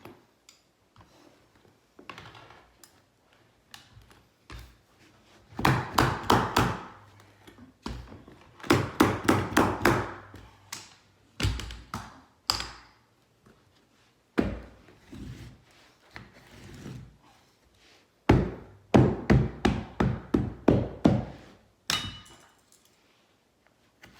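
Bursts of quick, sharp knocks on the wooden stairs as the carpet runner is fastened down. There are several strikes in each burst, with single knocks in between.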